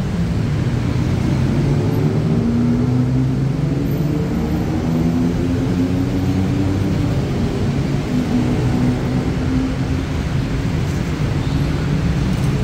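Diesel engine of a standing passenger train running at idle: a steady low hum whose pitch drifts up slightly a few seconds in and settles again.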